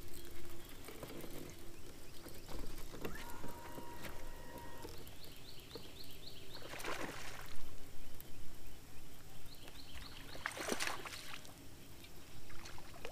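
Water lapping and trickling against a bass boat's hull on a calm lake, with two short rushing splashes. Before each splash comes a quick run of high chirps.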